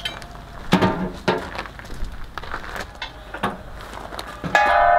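Scattered metal knocks and clunks as steel propane cylinders are handled and set into the trailer's tank rack, then, about four and a half seconds in, a sharp clank and a steel cylinder ringing like a bell with several steady tones that slowly fade.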